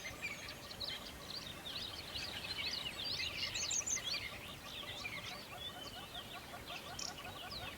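A dense chorus of many small birds chirping and twittering at once, overlapping. About halfway through, a lower, rapid, evenly repeated chirping joins in.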